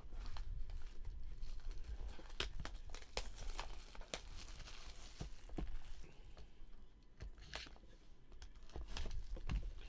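Clear plastic shrink-wrap being torn and crinkled off a cardboard trading-card box, a string of irregular crackles and small clicks, with the box being handled.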